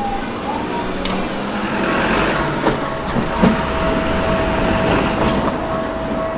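Tokyu Setagaya Line train running over the level crossing: a steady rumble with a few sharp wheel knocks over the rail joints, and a steady high tone that sets in about two seconds in.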